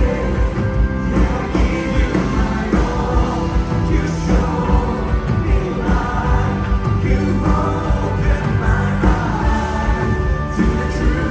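Contemporary praise-and-worship music: a full band with a steady beat and singers.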